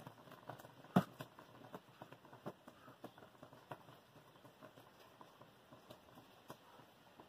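Faint background hiss with a few soft, scattered taps of a football being tossed and caught in the hands, the sharpest catch about a second in.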